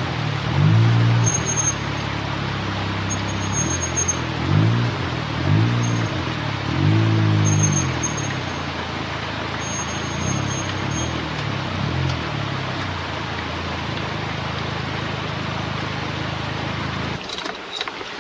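Suzuki Jimny JB23's small 660 cc turbo three-cylinder engine revving in repeated surges, about one a second, as the 4x4 crawls over boulders, then running steadier at lower revs, over a steady hiss. The sound changes abruptly near the end.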